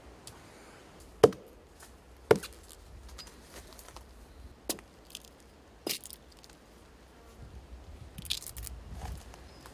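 Scattered sharp cracks and knocks of wood, four of them, the second the loudest, as dry sticks and twigs snap underfoot on the forest floor. Near the end there is a short rough scrape against a tree trunk.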